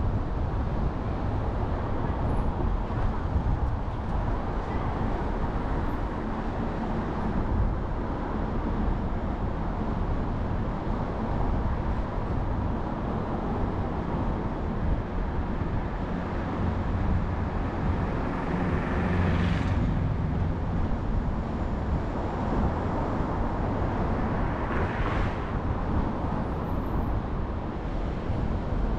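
Car driving along a road: steady engine and tyre noise with a deep rumble. Two brief whooshes rise and fall, the first about two-thirds of the way through and the second a few seconds later.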